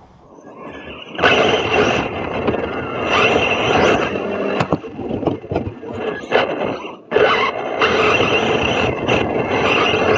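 Radio-controlled short-course truck driving over a dirt track, heard from a camera mounted on the truck: a steady whine over the rattle and scrape of dirt and gravel against the chassis. It comes in loud about a second in, drops away briefly near seven seconds, then picks up again.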